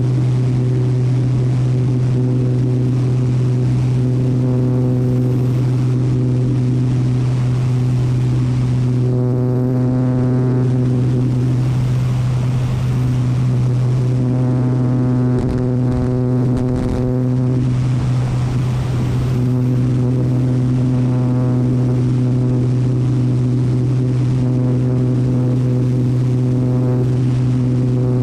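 An agricultural spraying aircraft's engine and propeller run steadily in low-level flight: a loud, even drone with a higher tone that comes and goes every few seconds. It is heard close up at the cowling with rushing air, and there is a brief unsteadiness about halfway through.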